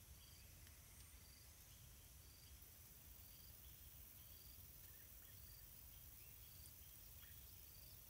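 Near silence: faint ambience with a low rumble and faint short high chirps repeating about once a second.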